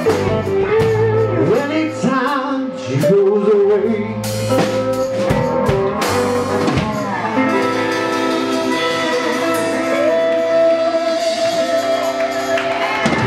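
Live blues band playing: electric guitars, bass guitar and drum kit, with the lead electric guitar bending notes. In the second half the drum hits thin out and the band holds a long sustained chord as the song closes.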